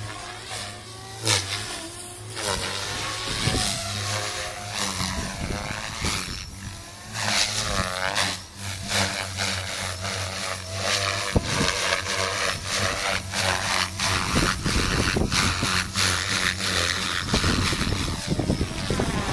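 SAB Goblin 380 electric RC helicopter flying aerobatics: main rotor blades whooshing over the whine of its electric motor, the pitch gliding up and down as it manoeuvres.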